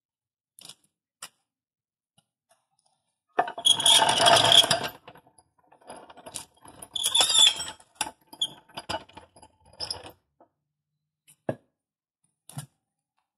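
A ratchet strap and other tire-changing gear being handled and cleared away on concrete: metal clicks and clinks from the strap's ratchet and hooks, with two longer, louder bursts of rattling noise about three and a half and seven seconds in.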